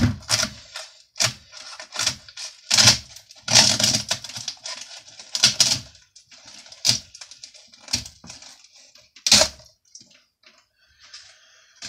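A side panel being cut and ripped off a small shelf frame with a knife: irregular crackling tears and clicks, thinning out in the last few seconds.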